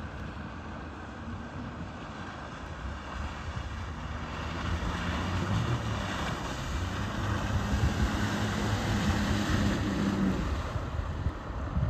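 Outboard motor on a small inflatable boat running at speed as it passes by: it grows louder through the middle and fades as the boat moves away near the end.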